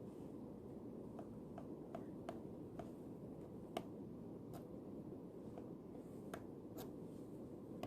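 Light, irregular clicks of a pen touching down on paper and desk while writing, about one or two a second, with one slightly sharper click near the middle. Under them runs a steady low hum of room noise.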